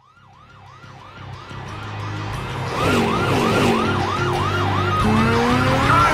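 Police siren in fast yelp mode, sweeping up and down about three times a second, fading in from silence and growing louder over the first few seconds. Car engines run under it, and one revs up in a rising whine about five seconds in.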